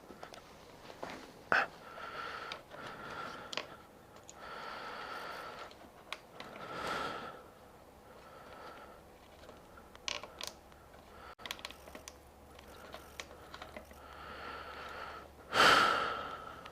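Hands handling small parts while fitting accessories to an e-bike: scattered light clicks, taps and plastic rustling, with a louder rustle or scrape near the end.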